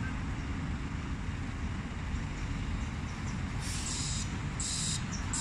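Scania G440 truck's diesel engine running with a steady low rumble. About three and a half seconds in, a high-pitched reversing beeper starts, sounding twice, evenly spaced and a little faster than once a second.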